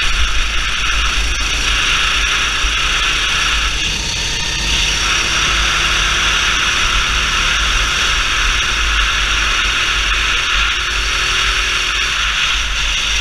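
Racing kart engine running at speed, heard from the onboard camera under heavy wind noise and rumble on the microphone, its faint pitch climbing slowly along the straight.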